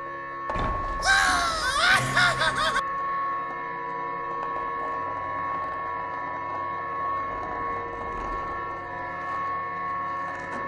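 Background music of steady held tones, with a burst of high-pitched laughter lasting about two seconds near the start.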